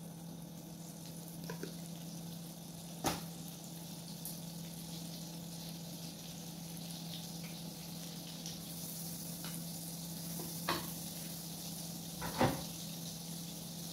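Butter melting in a hot wok, sizzling faintly and growing louder about two-thirds of the way through. A few sharp knocks, the loudest near the end as a wooden spatula meets the pan, over a steady low hum.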